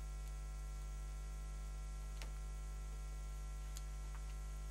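Steady electrical mains hum with its stack of overtones, unchanging throughout, with a couple of faint clicks.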